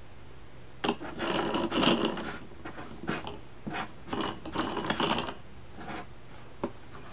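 Spinnable plastic wheel on a toy board book being turned, ratcheting in two bursts of rapid clicks, each about a second and a half long, with a few lighter ticks after.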